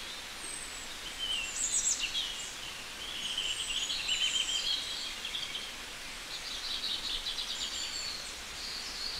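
Small birds chirping and twittering repeatedly in short high calls with quick rises and falls in pitch, over a faint steady hiss.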